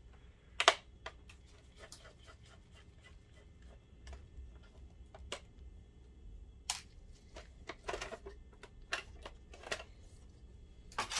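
Scattered light clicks and taps of a screwdriver, screws and a sheet-metal shield being handled while a DLP projector is taken apart, the sharpest click about a second in.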